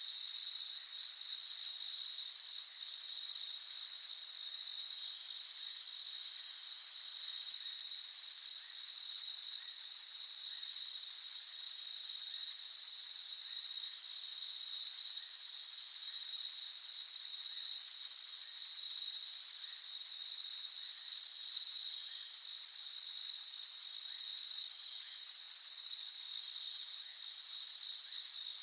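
Crickets chirping in a continuous chorus: a pulsing high trill overlapped by a still higher, steadier trill that breaks off and resumes now and then.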